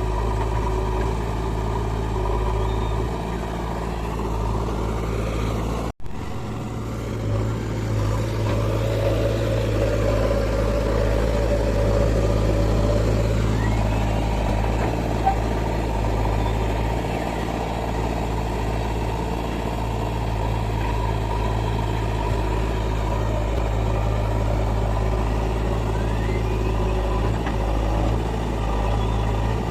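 Diesel engine of heavy machinery running steadily with a low hum, cut off for an instant about six seconds in, and a little stronger for several seconds after.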